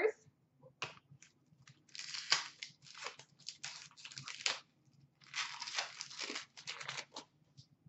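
A 2016-17 Upper Deck SP Authentic hockey card pack wrapper being torn open and crinkled, in two stretches of rustling, with a few light clicks of cards being handled about a second in.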